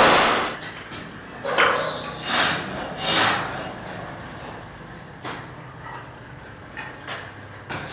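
A woodworking machine cuts off at the start, followed by three rasping strokes of wood being rubbed or filed by hand, then a few light knocks of wood being handled.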